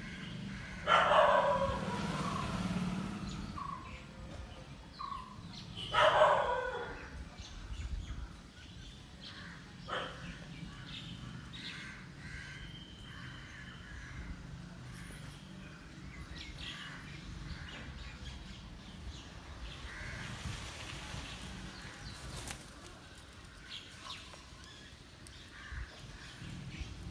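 Male Indian peafowl calling twice, loud and harsh, once about a second in and again about five seconds later; each call lasts about a second.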